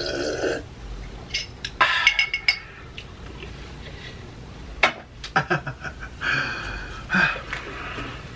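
Drinking from a glass, then a run of sharp clinks and taps as the glass and a fork knock against the food trays.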